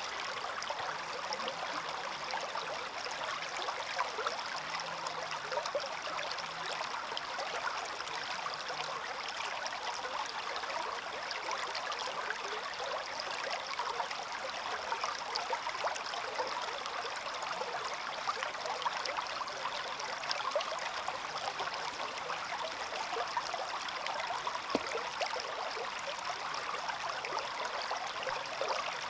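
Small stream flowing steadily, water trickling and splashing over stones in a continuous rush with small bubbling flickers.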